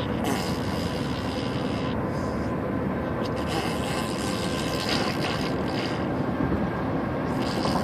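A baby blowing raspberries, her lips buzzing and sputtering in a long, nearly unbroken run, like a fart noise.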